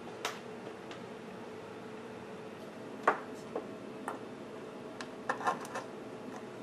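Short clicks and knocks of an RCA cable plug being handled and pushed onto the input jack of a tube preamp's metal chassis, the loudest about three seconds in and a quick cluster near the end. A steady hum runs underneath.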